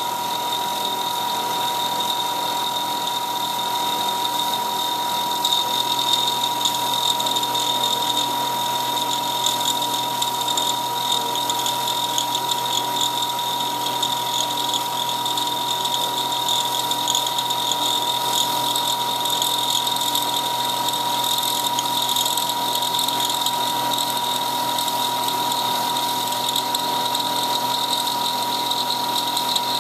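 CNC milling machine thread-milling a four-start worm gear under flood coolant: the spindle runs with a steady high whine while the cutter cuts and the coolant sprays. The cutting noise grows rougher and a little louder from about five seconds in and then holds steady.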